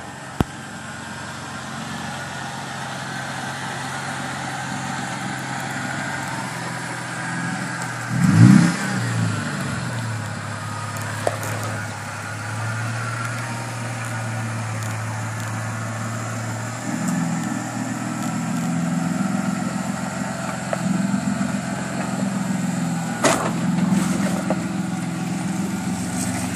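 Pickup truck engine running at low revs under load as the truck crawls over rocks, with a brief rev about a third of the way in and the engine pulling harder from a little past the middle. A single sharp knock near the end.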